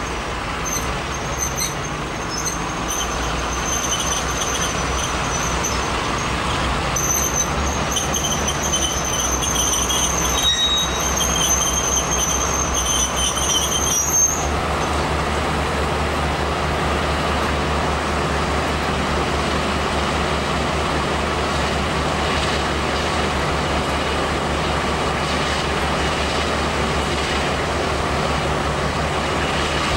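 Class 52 Western diesel-hydraulic locomotive D1041's twin Maybach engines running steadily at the platform, with a thin high whine over it for the first half.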